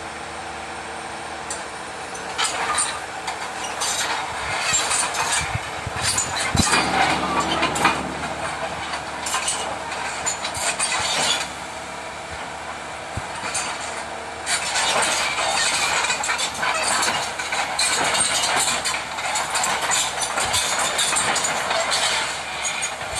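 Excavator's diesel engine running steadily, with repeated bursts of metallic clanking and rattling as the machine works its way up onto a truck: loudest from about two to eight seconds in and again from about fifteen seconds on.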